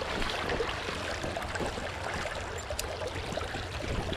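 Stream water flowing and trickling steadily, with a couple of faint clicks in the middle.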